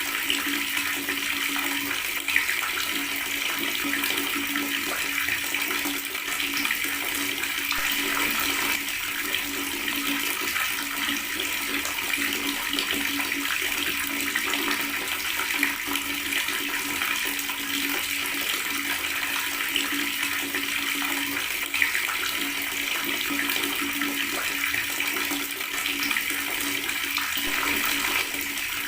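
Water tap running and gurgling steadily, with two brief louder spikes, one a couple of seconds in and one near the end.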